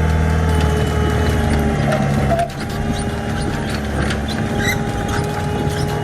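Excavator's diesel engine running steadily under work, with a steady whine; the engine note dips briefly about two and a half seconds in, with a few light clanks.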